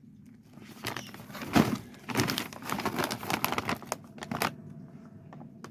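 Plastic snack packet of mushroom crisps crinkling as it is handled, a run of sharp crackles lasting about four seconds.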